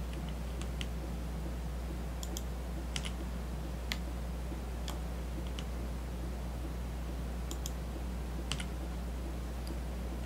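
Computer mouse clicks, about a dozen short, irregular clicks, some in quick pairs, while edges are picked for fillets in CAD software, over a steady low electrical hum.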